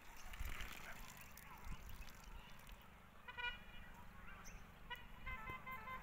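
Faint outdoor background with distant pitched tones: a short run of beeps about three seconds in, then a repeating tune of short tones starting about five seconds in.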